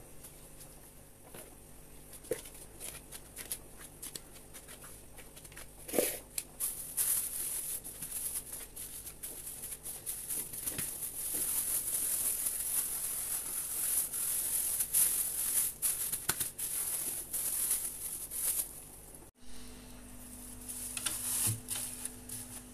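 A plastic bag crinkling and rustling in quick, irregular crackles as a ball of dough is wrapped in it. Near the end, after an abrupt cut, a freezer hums steadily.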